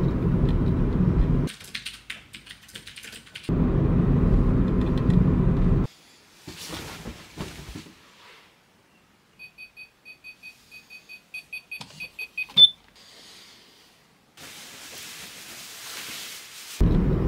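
Low road rumble inside a moving car, broken by cuts to fabric rustling. In the middle, an electronic alarm beeps in short evenly spaced pips that come faster and faster, then stops at a sharp click.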